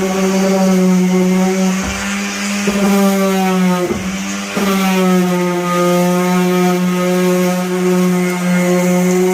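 Electric power sander running steadily on the car's bodywork, a high steady motor hum whose pitch dips briefly a few times.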